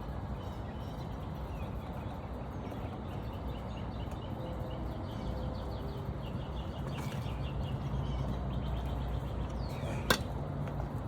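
Outdoor background with a low steady hum and faint bird chirps; a single sharp click sounds about ten seconds in.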